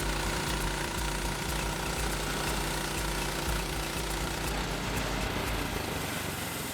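Frontier OS27 portable band sawmill's engine running steadily, fading out near the end.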